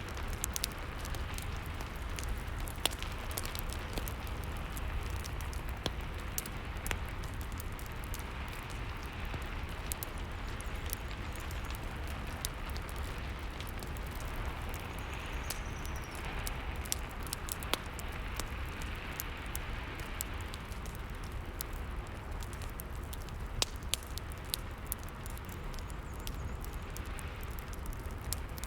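Steady rain mixed with a crackling fireplace: an even hiss of rain over a low rumble, with many small sharp crackles and pops from the burning wood.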